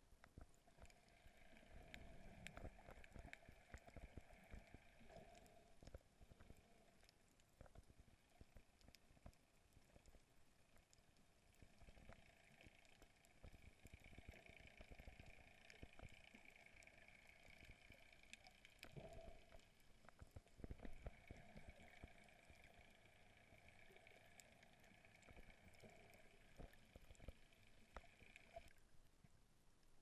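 Faint, muffled underwater sound recorded by a submerged camera: scattered crackling clicks over a faint steady hum that cuts off shortly before the end.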